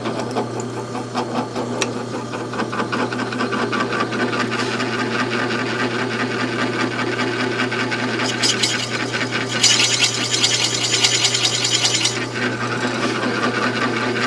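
Drill press running with a 7mm barrel trimmer cutting the end of a wooden blank that has a brass tube glued in: a steady motor hum under a scraping cut. The cut turns harsher and brighter about ten seconds in for a couple of seconds. The end is being squared flush with the brass tube.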